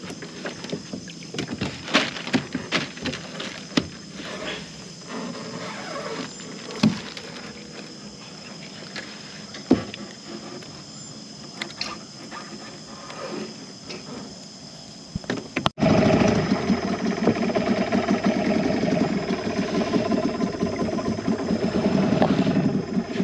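Scattered knocks and clicks, then after a sudden cut a small boat engine running steadily with a fast, even chugging. The engine is the loudest part.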